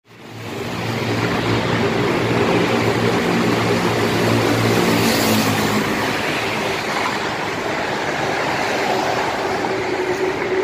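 Highway traffic passing close by: a motorcycle and a tanker truck go past, with engine drone and tyre noise on the concrete road.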